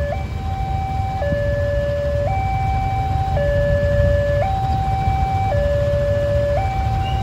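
Railway level-crossing warning alarm sounding a steady two-tone hi-lo signal, switching pitch about once a second, which tells road traffic that a train is coming. Under it runs the low rumble of idling motorbike and car engines.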